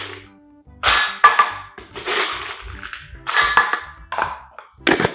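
Dry dog kibble rattling as it is scooped from a jar and poured into a stainless steel bowl, in about five separate clattering bursts.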